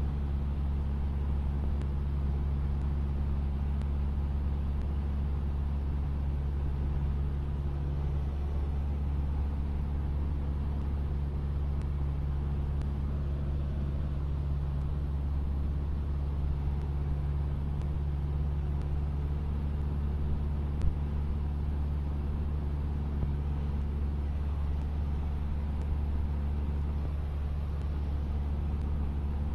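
Cessna 152's four-cylinder Lycoming piston engine and propeller running at a steady, unchanging speed: a constant low drone.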